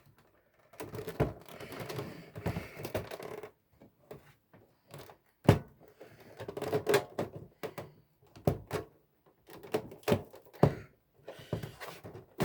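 Irregular clicks, knocks and rattles of the original Xbox's plastic and metal parts being handled and pushed while the console is put back together and its case will not close.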